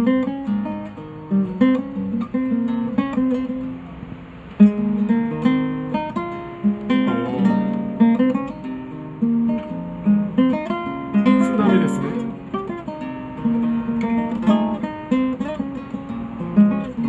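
Nylon-string acoustic guitar played solo, plucked melody notes and chords ringing on. The playing softens about four seconds in, then comes back with a sudden loud chord.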